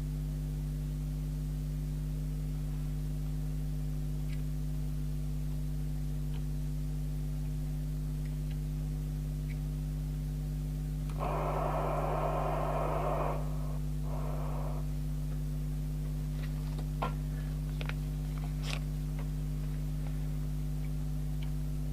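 Steady electrical hum of the workshop air conditioning, with a hiss of about two seconds near the middle, a shorter one just after, and a few light clicks later on.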